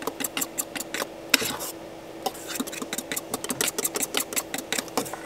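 A fork whisking batter in a metal bowl: rapid, irregular clinks of the tines against the bowl. A steady low hum runs underneath.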